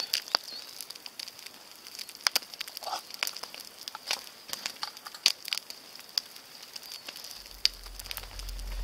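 Large campfire crackling, with irregular sharp pops and snaps from the burning wood. A low steady hum comes in near the end.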